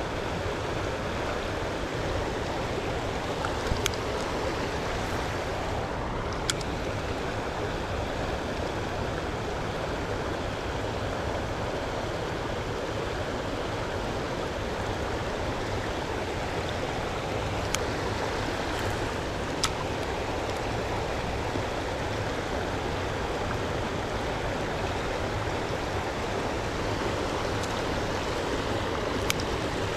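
Fast-flowing river water rushing steadily, with a few faint sharp clicks.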